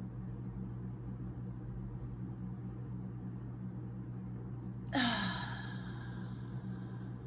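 A woman lets out a held deep breath through an open mouth as an audible sigh about five seconds in. The sigh falls in pitch and fades over about a second. A steady low hum runs underneath.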